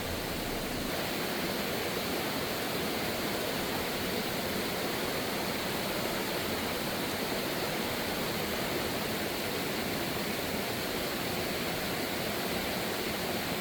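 Rushing mountain stream water, a steady, unbroken wash of noise.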